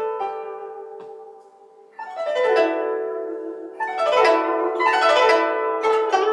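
Guzheng solo: plucked notes ring and fade for about two seconds, then three quick runs of notes cascade downward in pitch, one after another.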